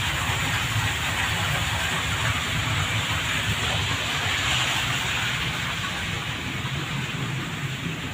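Steady rushing hiss over a low rumble, the running noise of aquarium pumps and circulating water, easing slightly near the end.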